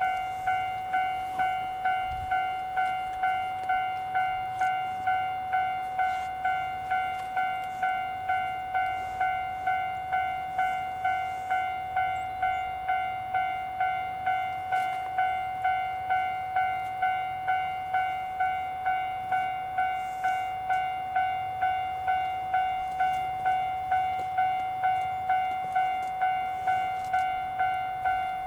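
Railway level crossing warning bell ringing steadily at one pitch, about three dings every two seconds, each ding fading quickly.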